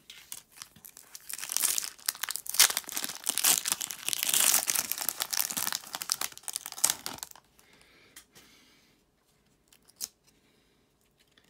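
Foil wrapper of a Topps Chrome trading card pack being torn open and crinkled by hand for about six seconds. After that it falls quiet apart from a couple of faint clicks as the cards are handled.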